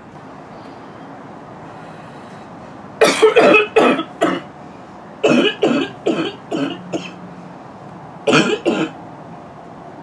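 A girl's loud barking cough in three fits: about four coughs, then about six, then two in quick succession.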